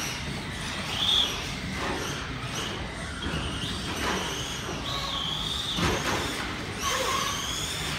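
Electric motor of a Losi 22 SCT 1/10 RC short-course truck whining, its pitch rising and falling as it accelerates and lets off around the track, with a brief knock about six seconds in.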